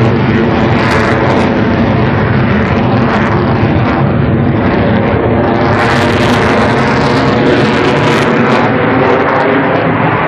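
Aircraft engine droning steadily overhead, a continuous hum with no break.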